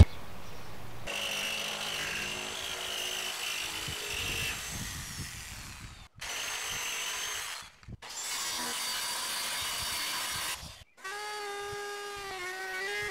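Handheld electric power tool cutting a sheet of plywood, its motor whining steadily, in three stretches broken by abrupt drops to silence. About eleven seconds in, guitar music takes over.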